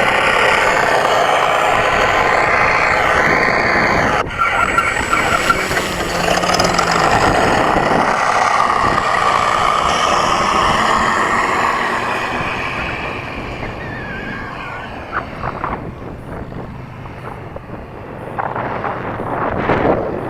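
E-flite Carbon-Z T-28 RC model warbird running at power, its electric motor and propeller mixed with the simulated engine sound of its Mr. RC Sound speaker system. The sound is loud and steady, then fades from about twelve seconds in as the plane pulls away, and swells again near the end.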